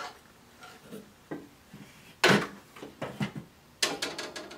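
A fishing rod being handled and pulled out of a wall-mounted rod holder: a series of sharp knocks and clatters, the loudest about halfway through and a quick cluster near the end.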